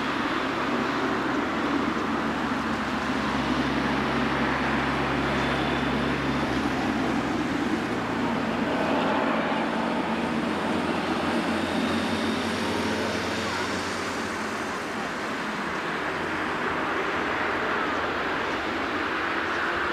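Steady rumble and hiss of a taxiing Boeing 777 freighter's jet engines at low thrust, with a faint rising tone near the end.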